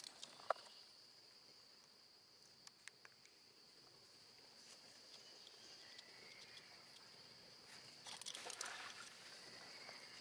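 Faint, steady high-pitched drone of insects, with a few soft clicks in the first few seconds and a brief rustle about eight seconds in.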